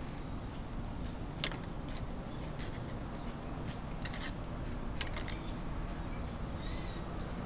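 A steady low background rumble with scattered sharp clicks and crackles, the two loudest about a second and a half and five seconds in.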